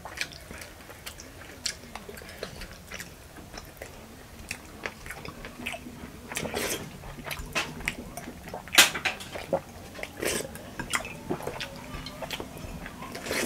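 Close-up eating sounds: chewing and mouth noises as rice-and-mutton khichuri is eaten by hand and with a spoon, with scattered clicks and clinks of a metal spoon and fingers against ceramic plates. A few sharper clinks stand out in the middle, the loudest a little before 9 seconds in.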